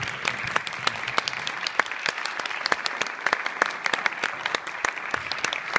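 Audience applauding in a concert hall: a steady wash of clapping with many sharp single claps standing out close by.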